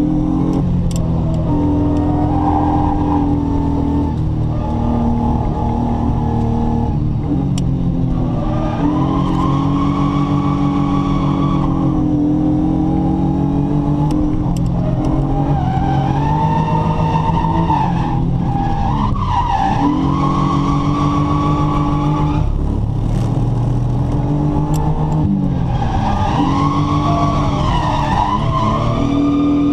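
A car's engine heard from inside the cabin, driven hard: the revs climb, drop back and climb again over and over as the car is drifted through the corners.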